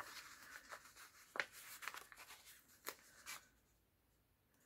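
Faint rustling of a paper sticker sheet and sticker being handled and pressed onto a planner page, with a few light ticks; it dies away in the last second.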